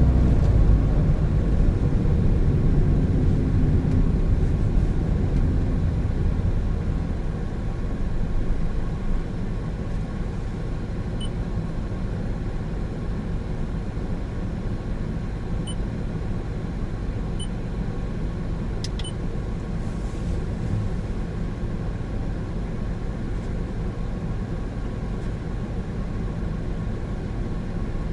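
Cabin rumble of a 2017 Honda N-BOX Custom's 660 cc turbo engine and road noise while driving, louder for the first several seconds and settling lower and steadier from about nine seconds in. A few faint short pips and a single click come midway.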